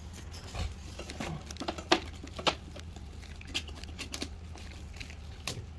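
Scattered light knocks and taps as a wooden shelf board is handled and set into a metal rack frame, over a steady low hum.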